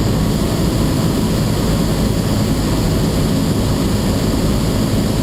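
Steady drone of a Cessna 172's four-cylinder piston engine and propeller, mixed with rushing air, heard inside the cabin on final approach.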